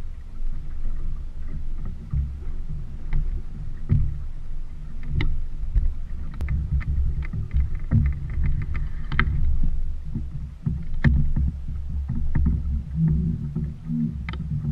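Water running along the hull of a small sailboat under way: a steady low rumble with scattered light knocks and clicks, and a short patter of rapid ticks about eight seconds in.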